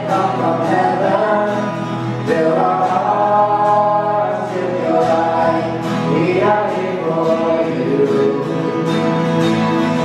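Congregational worship singing: many voices singing a slow worship song together, led by a man singing with a strummed acoustic guitar.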